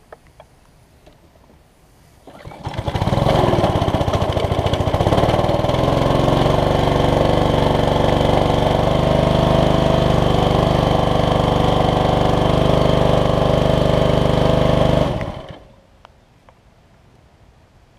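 Honda GCV160 single-cylinder overhead-cam engine on a pressure washer starting about two and a half seconds in, its pitch rising as it catches, then running at a steady speed for about twelve seconds before shutting off and winding down.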